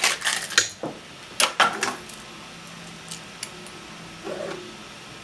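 Small hard parts clattering and clicking as they are rummaged through by hand: a run of sharp rattles in the first two seconds, then a few faint ticks.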